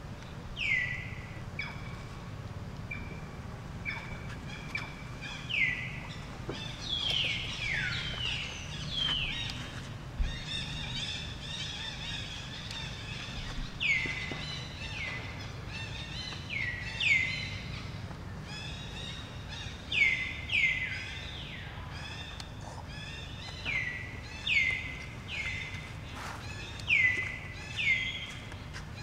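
Birds calling: short, high chirps that each sweep quickly down in pitch, coming in twos and threes every few seconds, over a steady low background rumble.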